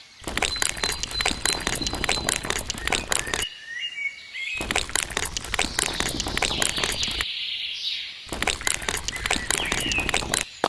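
Rapid, irregular clicking and scraping in three stretches, broken by two short pauses. In the pauses, birds chirp with short gliding calls.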